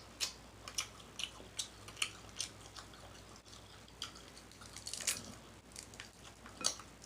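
Wet smacking and clicking while eating crab-leg meat at close range: a short sharp click about every half second for the first few seconds, then a lull and a few scattered clicks.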